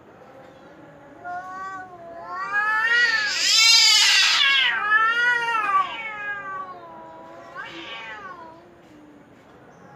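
Cat yowling: a long, wavering call that rises and falls in pitch several times and is loudest in the middle, then a shorter yowl near the end.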